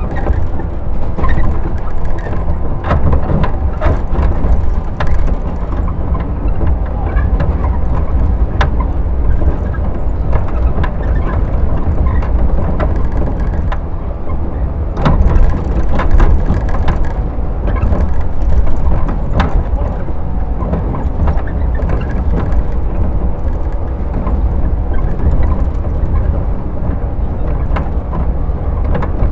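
Running sound inside a JR 115 series EMU motor car: its MT54D traction motors and gearing humming at a steady pitch over the heavy rumble of wheels on rail, with scattered sharp clicks and knocks from the track.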